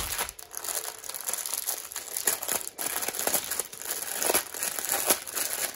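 Clear plastic bag of packaged square diamond-painting drills crinkling as it is handled and turned over, a continuous irregular crackle of many small sharp rustles.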